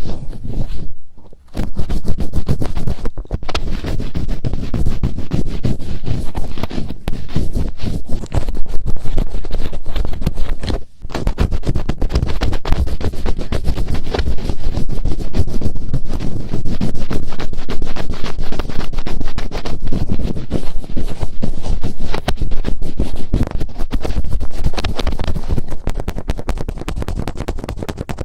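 Fingertips rubbing and scratching over the ear of a binaural microphone in finger ear-cleaning ASMR: dense, close crackling scratches, broken by short pauses about a second in and near eleven seconds.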